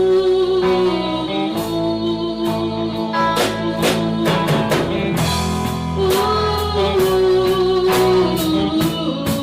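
Live band playing a rock song on drum kit and guitar, with a sung melody of long held notes over a steady drum beat.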